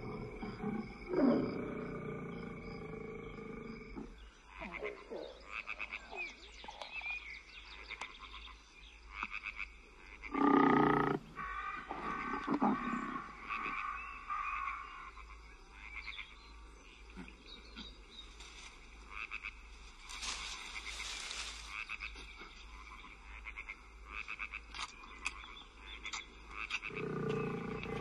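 Frogs croaking in a steady chorus, with big cat growls and roars at intervals, the loudest about ten seconds in and another near the end.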